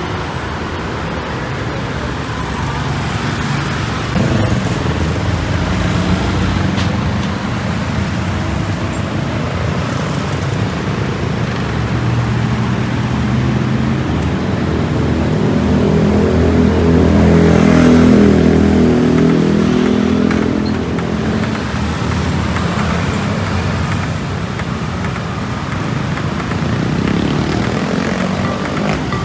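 Road traffic on a city street: a steady rumble of cars and motorbikes going by. One vehicle's engine passes close, growing louder past the middle and then fading.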